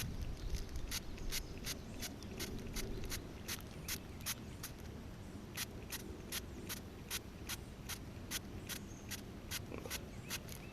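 A steady series of short, sharp clicks, about two to three a second, over a faint low background.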